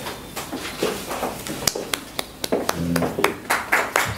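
Audience clapping, scattered and uneven at first and growing denser near the end.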